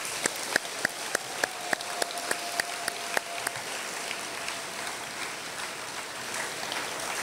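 Audience applause: a large crowd clapping, with sharp single claps close to the microphone at a steady pace for the first few seconds. A faint steady tone runs under the clapping through the middle.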